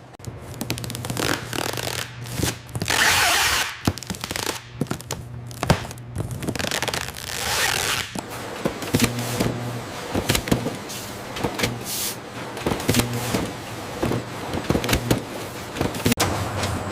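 Machinery clattering with many short knocks, a steady low hum underneath and two hissing surges, about three and seven seconds in.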